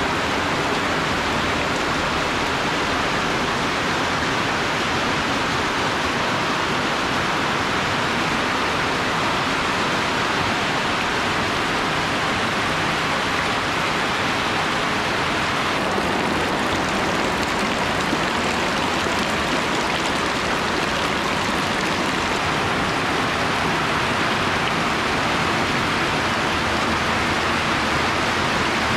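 Heavy rain falling steadily, splashing into puddles and onto water-filled plastic drums.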